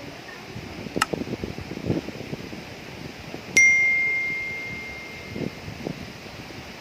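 A small metal bell struck once about halfway through, ringing on one clear high note and fading away over about two seconds. A sharp click comes about a second in.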